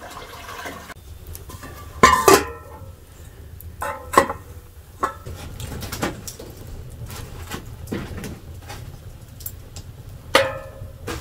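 A handful of sharp metallic clanks and knocks, some ringing briefly, loudest about two seconds in and again near the end, over a low steady rumble: metal tongs and a knife being handled at a wood-fired hearth.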